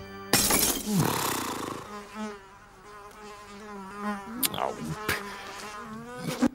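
A loud, noisy rush at the start, then an animated fly buzzing around. The drone wavers in pitch as it flies, with a few quick swoops near the end.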